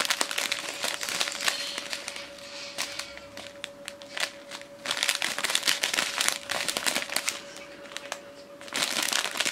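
Small clear plastic zip-lock bags of resin diamond-painting drills crinkling as they are handled, in bouts with short lulls between.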